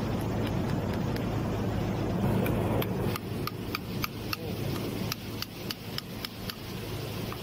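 Screwdriver tips scraping and clicking on the rusted metal cover of a handwheel butterfly valve's gearbox as it is levered off. A steady low rumble fills the first three seconds, then gives way to a run of short, sharp metallic ticks, several a second.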